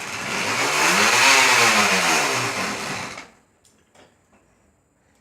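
Bicycle spoke noisemaker buzzing against the spinning wheel's spokes, a motorcycle-like rattle that rises in pitch and then falls as the wheel speeds up and slows. It stops about three seconds in.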